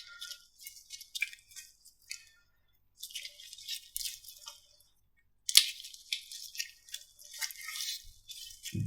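Slime being squished and worked, giving bursts of crackling, clicking and popping. It comes in several short runs, with two brief dead-silent gaps between them.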